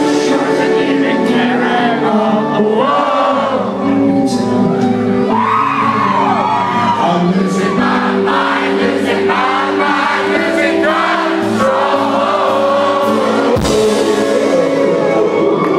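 Indie rock band playing live, with sung vocals over guitars and drums.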